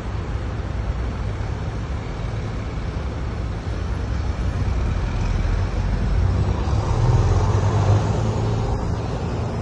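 Street traffic: a steady low rumble of road noise, swelling as a vehicle passes about seven to eight seconds in.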